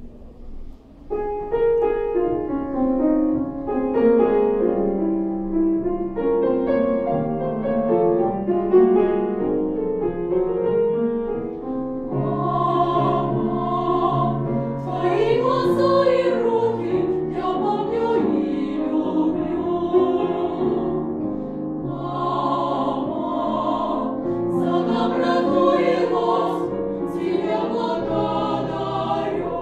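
Girls' vocal ensemble singing a choral song in several parts, with piano accompaniment. The sound grows fuller and brighter about twelve seconds in.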